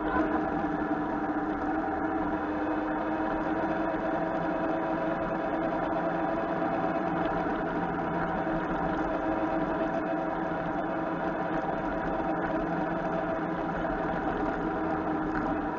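Motorcycle engine running steadily at a constant cruising speed, an even drone with road and wind noise, heard from a handlebar-mounted camera.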